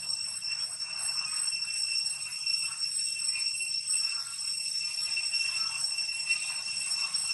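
Steady, shrill insect chorus of cicadas or crickets in the trees, holding an even high-pitched ringing tone throughout.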